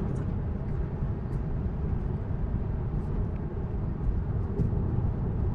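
Steady road and tyre noise heard inside the cabin of a Tesla electric car cruising at about 45 mph: an even, low rumble.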